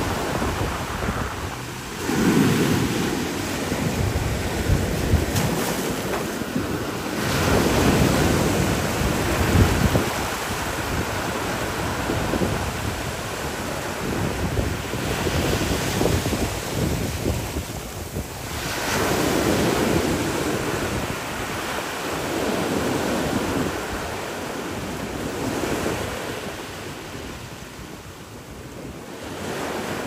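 Ocean surf breaking over rocks and washing through the gap between them, a steady rush that swells louder with each set of waves every several seconds and eases near the end.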